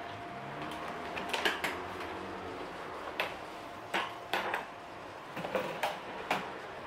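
Light, scattered clicks and knocks of a pet carrier's wire lid and plastic base being handled and closed, over a steady room hiss.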